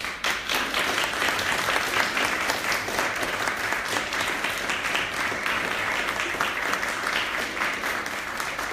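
Audience applauding: a dense patter of many hands clapping, starting suddenly and easing off slightly near the end.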